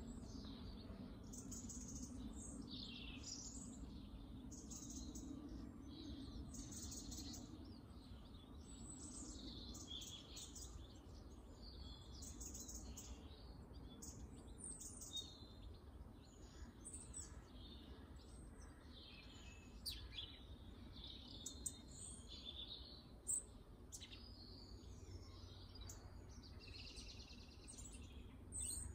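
Faint garden birdsong: several small birds chirping and trilling in quick, overlapping phrases, with a low hum fading out over the first few seconds.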